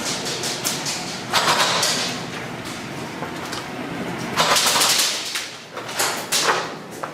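Airsoft electric guns firing rapid full-auto bursts in an indoor arena, three main bursts: about a second in, around four and a half seconds, and around six seconds.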